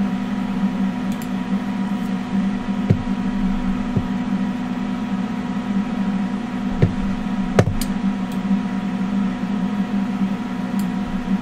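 K40 CO2 laser cutter switched on and idling, its fans and pumps running with a steady hum and a couple of faint whining tones. A few sharp clicks sound over it.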